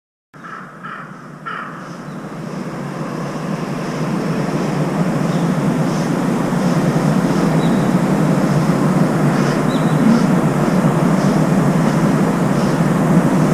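A crow cawing three times in the first couple of seconds, followed by a rushing noise that grows louder over several seconds and then holds steady.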